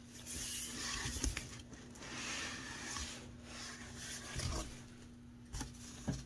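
Corrugated cardboard shipping box and foam packing being handled and shifted: scraping and rustling, loudest in the first few seconds, with a few soft knocks.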